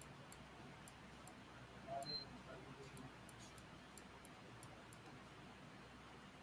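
Near silence broken by about a dozen faint, high-pitched clicks at irregular intervals, from a computer mouse being clicked and scrolled. A brief soft sound about two seconds in.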